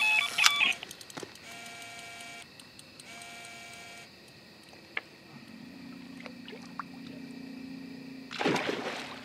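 Electronic carp bite alarms on a rod pod sounding: a few quick high beeps, then two steady tones of about a second each, the signal of a fish taking line. A short burst of rushing noise comes near the end.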